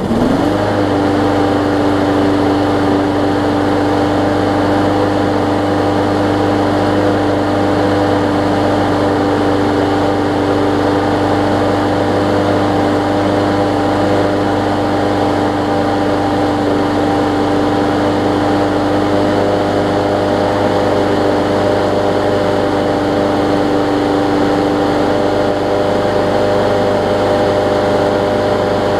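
Briggs & Stratton Quantum 5 hp engine on a Murray push mower catching right at the start, its pitch rising briefly as it comes up to speed, then running steadily with its throttle wedged at full throttle. It is running on its new carburetor and primer bulb setup.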